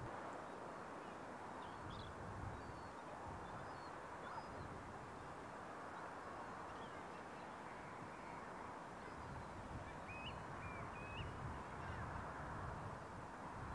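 Steady shoreline background hiss, with a few faint, short high bird calls near the start and a small cluster of them about ten seconds in.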